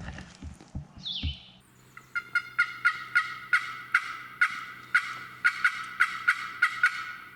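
Wild turkey calling: a run of about fifteen evenly spaced yelping notes, two or three a second. It is preceded by a few soft thumps and a brief high squeak.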